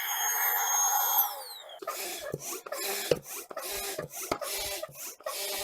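A small electric air pump running with a high whine that falls away as it stops, about a second and a half in; then the tent's hand pump being worked in quick, rhythmic strokes, pumping air into an inflatable tent beam.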